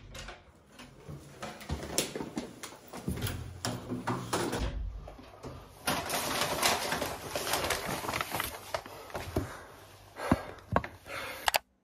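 Room door opening and footsteps, then a brown paper grocery bag rustling as it is carried in and set down on a table. Several sharp knocks close to the microphone near the end as the camera is handled.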